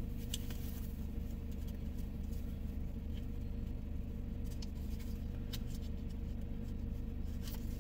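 Steady low hum of a car idling, heard from inside the cabin, with scattered light taps of raindrops on the car.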